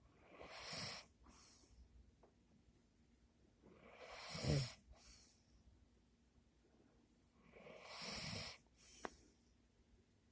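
A sleeping man breathing noisily: three long breaths about four seconds apart, each followed by a shorter one. The loudest, in the middle, carries a low snore-like rumble. It sits on the line between snoring and heavy sleep breathing.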